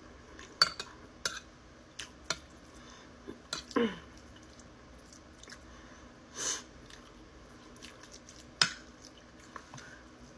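Close-up chewing and mouth sounds of someone eating lamb curry with rice, with scattered sharp clicks and scrapes of a metal spoon on the plate.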